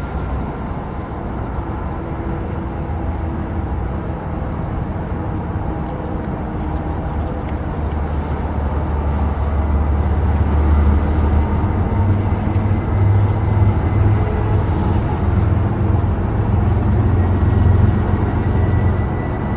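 Boeing 747-400 freighter on final approach with its gear down: a low rumble from its four jet engines that grows louder about halfway through as it comes closer.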